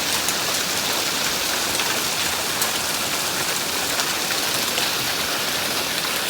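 Heavy rain and hail pelting down in a dense, steady hiss, with scattered sharp ticks of hailstones striking.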